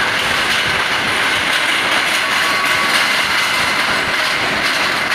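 Loud, steady mechanical din of an automated T8 LED tube silicone-dispensing production line running on a factory floor.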